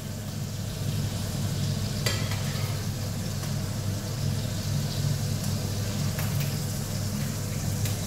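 Langostinos sizzling in hot oil in a frying pan as a wooden spatula scrapes them out, with an occasional tap of the spatula on the pan, over a steady low hum.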